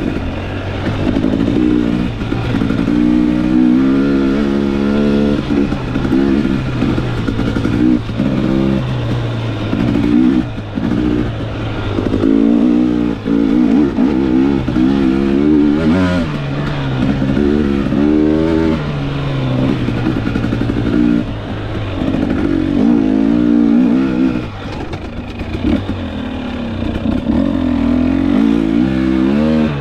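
KTM 250XC single-cylinder two-stroke dirt bike engine, close up, revving up and down again and again as the throttle is worked, its pitch rising and falling every second or two.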